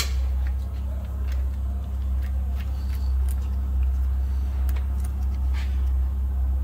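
Steady low machine hum, with scattered light clicks and taps of hand tools and small metal parts being handled on the engine.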